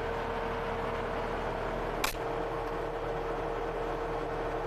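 Case TR270B skid steer running steadily, heard from inside its closed cab: an even machine drone with a steady whine over it, and a single click about two seconds in.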